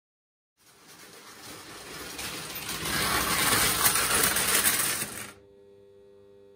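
Prewar Lionel O gauge electric toy train running on tinplate track, its metallic clatter and motor growing louder as it approaches, then cutting off suddenly about five seconds in as the 82N automatic semaphore's built-in train-stop cuts the power and halts it. A steady hum remains after it stops.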